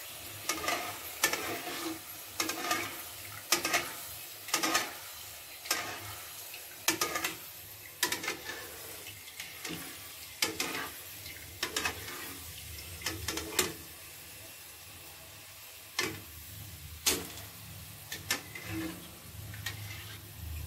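Peeled field beans frying in hot oil in an iron kadai, sizzling steadily, with sharp clinks of a metal slotted ladle against the pan every second or so. The clinks grow sparse in the last few seconds.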